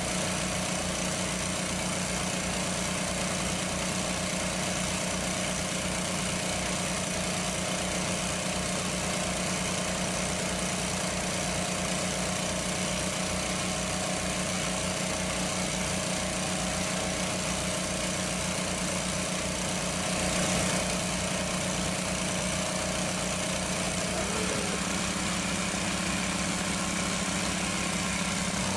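A small engine running steadily at idle with an even, rhythmic throb; about 24 seconds in its note changes and the low throb eases.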